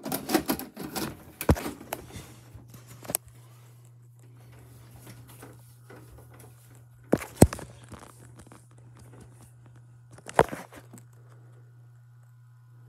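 Clicks and clatter of a VHS cassette being loaded into a VCR, then a steady low buzz from the TV, broken by two sharp clunks about seven and ten seconds in.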